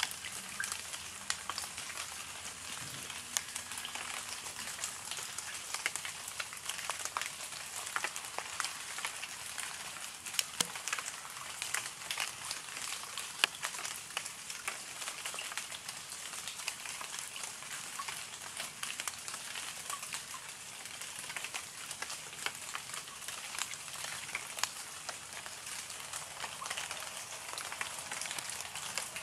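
Steady rain, a continuous hiss with many small drop ticks.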